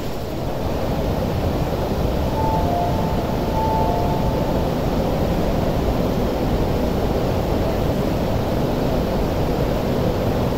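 MTR Kwun Tong Line train pulling into an underground platform behind platform screen doors: a steady low rumble, with a few brief faint tones about two to four seconds in.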